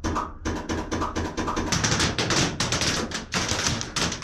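Rapid, irregular clatter of hard taps and knocks, several a second.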